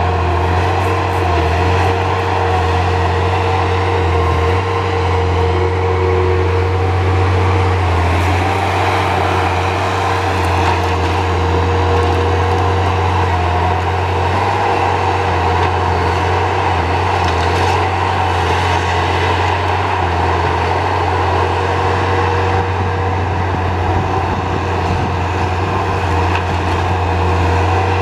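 Tracked feller buncher's diesel engine running steadily at working revs as the machine travels and works its boom. A steady higher tone rides over the engine for the first several seconds.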